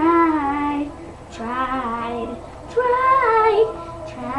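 A child singing in a sing-song voice: three drawn-out phrases with sliding pitch and short gaps between them.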